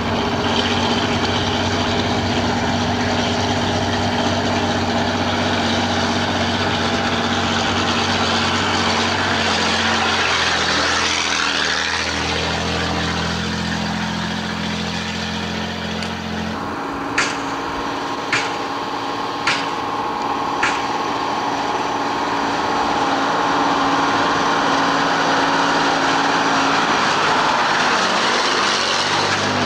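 Diesel engines of AEC Mercury dump trucks running as the trucks drive across a road-construction site, a steady engine drone whose pitch shifts about ten seconds in and changes abruptly about seventeen seconds in. Between about seventeen and twenty-one seconds in come four sharp clicks, roughly a second apart.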